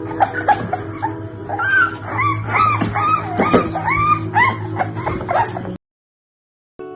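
American Bully puppies whimpering and yipping in a quick run of short, high cries that rise and fall in pitch, over background music. The sound cuts off about six seconds in, and after a second of silence jingle-bell music begins.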